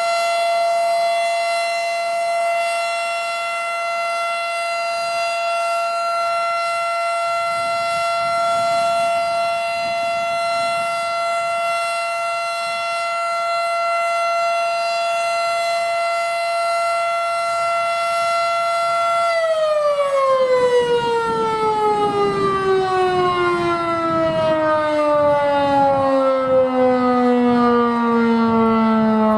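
Federal Signal Model 5 outdoor warning siren sounding a loud, steady tone; about 19 seconds in, its pitch begins falling smoothly as the siren winds down.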